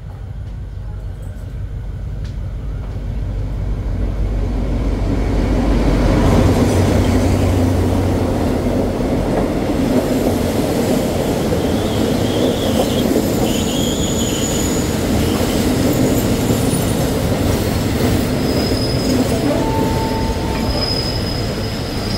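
State Railway of Thailand diesel-hauled passenger train pulling into the station along the platform. A low rumble builds and passes over the first several seconds, then the coaches roll by, slowing, with high-pitched squeals from the brakes and wheels starting about halfway through.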